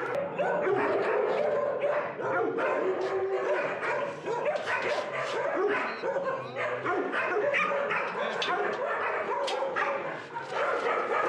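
Several kennelled dogs barking and yipping over one another without a break, with some whimpering.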